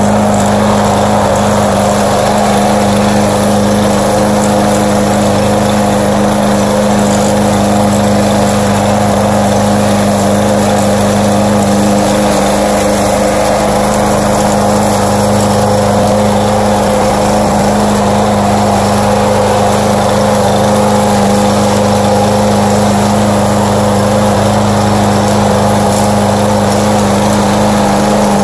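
Gas walk-behind lawn mower engine running at a steady speed while cutting grass: a loud, even hum that does not change.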